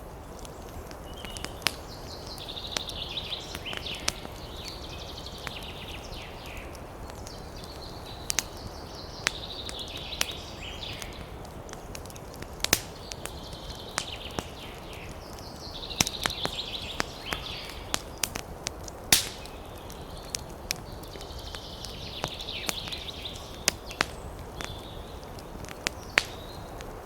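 Campfire crackling: burning wood gives sharp, irregular pops over a low steady hiss. A bird sings short chirping phrases several times in the background.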